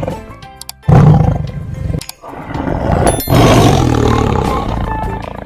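Tiger roaring three times: a roar about a second in, another about two seconds in, and a longer one that fades out near the end.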